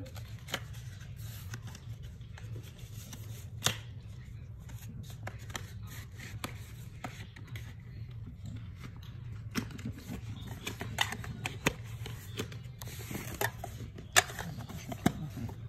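Hands handling small boxes and packaging: scattered light clicks and taps, with two sharper knocks about four seconds in and near the end, over a steady low hum.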